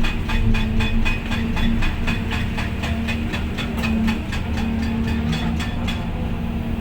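Volvo EC550EL excavator's diesel engine running steadily under work, with a fast, even ticking about five times a second that stops about five and a half seconds in.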